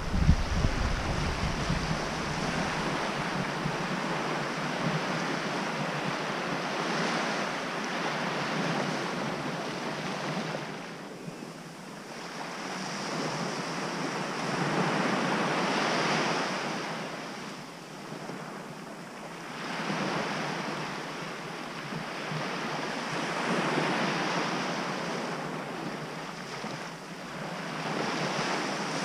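Small waves breaking and washing up a sandy beach, the surf swelling and fading every few seconds, with some wind over the microphone.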